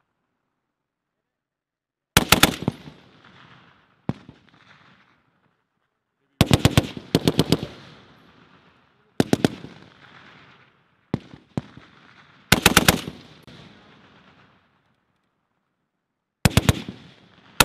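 M2 .50-calibre heavy machine gun firing short bursts of a few rounds each, with a couple of single shots, spaced a few seconds apart; each burst trails off in echo. The first shots come about two seconds in.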